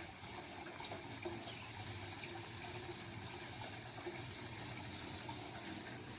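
Koi pond waterfall running: a steady splash of water pouring into the pond.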